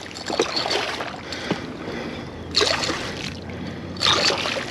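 Water sloshing and splashing around a kayak, with a few short, sharper splashes.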